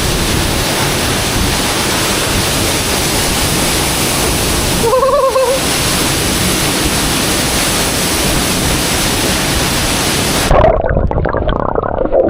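Waterfall running: a loud, steady rush of falling water. About five seconds in a short voice-like call cuts through. Near the end the sound turns suddenly dull and muffled.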